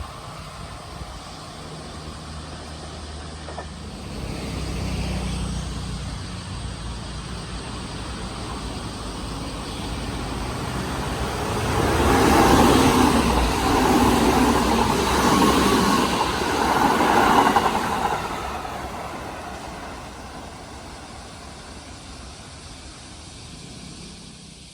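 A Kintetsu electric train passing on the Osaka Line. The rumble of its wheels on the track builds, is loudest for several seconds around the middle with repeated surges, then fades away as it goes.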